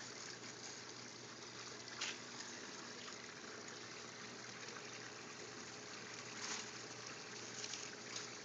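Steady trickle of running water in a backyard aquaponics system, with a faint steady hum. Two brief rustles stand out, about two seconds in and again near six and a half seconds, as the cucumber vines are pushed aside by hand.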